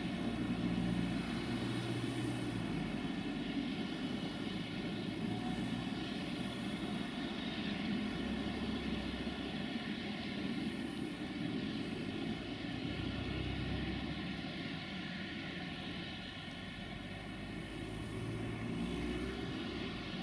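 Diesel railway engine running steadily: a low drone with engine tones that swells and eases slightly.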